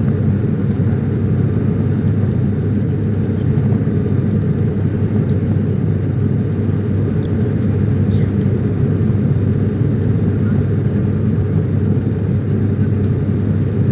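Steady drone of an airliner's engines and rushing air heard inside the passenger cabin during the climb after takeoff.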